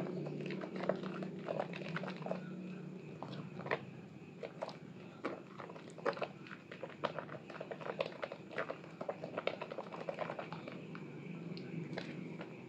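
A soaked, softened bar of Asepso orange soap squeezed and rubbed by hand in thick lather, giving irregular wet squelches and crackling clicks, with a low steady hum underneath.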